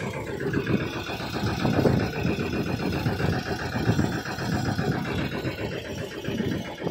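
Engine of a 10.5 hp Sanedo three-wheel mini tractor running steadily at idle, heard close up.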